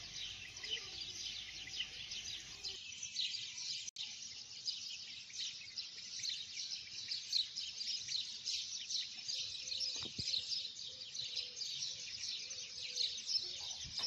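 A dense chorus of small birds chirping and twittering continuously, with many overlapping high calls. The sound cuts out for an instant about four seconds in.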